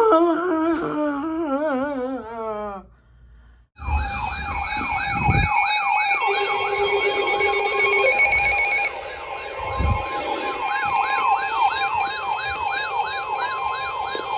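Electronic siren in yelp mode: rapid rising-and-falling sweeps, about two and a half a second, with a steady high tone beneath them. Before it, a wavering tone falls in pitch for about three seconds and cuts off.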